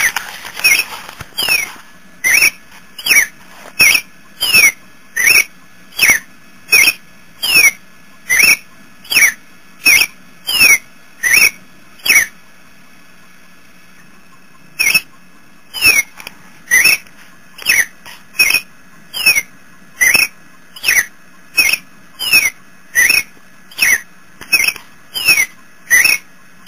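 Experimental noise-music recording: a looped short squeaky chirp, falling in pitch, repeating a little more than once a second over a faint steady hum, with a pause of a few seconds near the middle.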